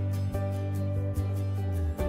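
Background music with held chords over a bass line; the chord changes a couple of times.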